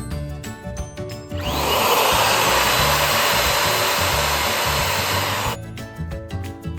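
An electric balloon pump blowing air into a balloon: a loud, steady rush of air that starts about a second and a half in and cuts off suddenly about four seconds later. Background music with a steady beat plays throughout.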